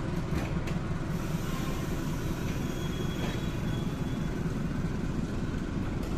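Passenger train coaches rolling past on the rails as the train departs the station, a steady low rumble of wheels on track. A few short clicks come in the first second, and a faint thin squeal follows about three seconds in.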